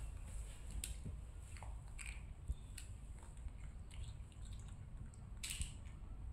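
Young macaque crunching potato chips: a scattered series of short, crisp crackles.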